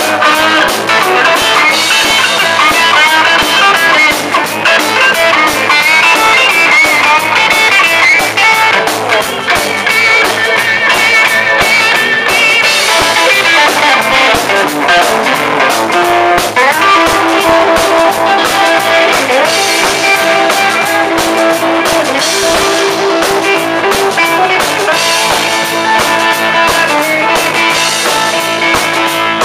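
Live rock band playing loud: electric guitars over a drum kit, with a guitar picking a melodic line.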